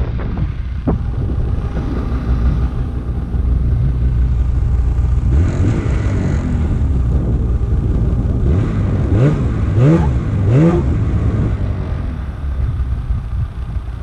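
Snowmobile engine running steadily, then revved three times in quick succession, each rev rising in pitch, about nine to eleven seconds in.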